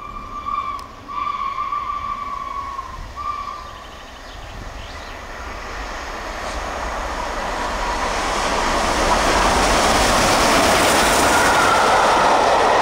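Steam whistle of LNER A3 Pacific locomotive 60103 Flying Scotsman sounding three blasts in the first few seconds: one running on from just before, a long middle one and a short last one. The train then comes through at speed, with a growing rush of wheels on rail that is loudest from about two-thirds of the way in as the locomotive and coaches pass close by.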